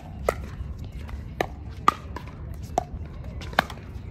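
Pickleball paddles hitting the ball back and forth in a rally: five sharp pops about half a second to a second apart, over a low rumble.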